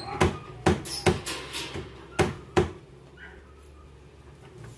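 Sharp knocks on the panels of a flat-pack clothes cabinet being assembled: about six irregular strikes in the first three seconds, then faint handling.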